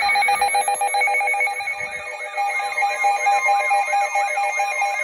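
Emergency alert tones: several steady electronic tones sounding together, layered with a sweeping tone that rises and falls about three times a second.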